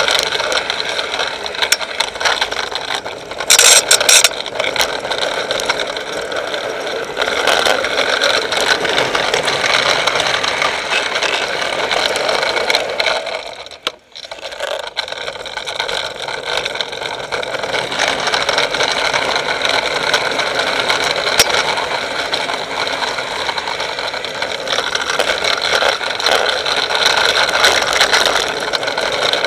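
Onboard road noise from a drift trike coasting down a steep asphalt road: its wheels rolling and sliding on the tarmac in a steady rush. A short, louder scraping burst comes about four seconds in, and the noise drops out briefly near the middle.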